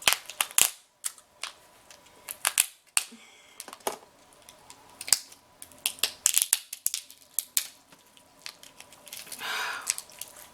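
King crab leg shells being cracked open: a run of sharp, irregular cracks and snaps.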